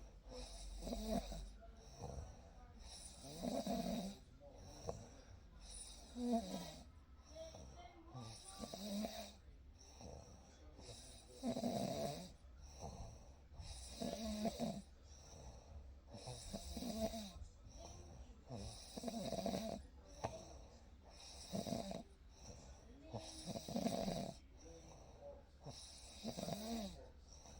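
A person snoring in their sleep, one snore every two to three seconds with quieter breathing between.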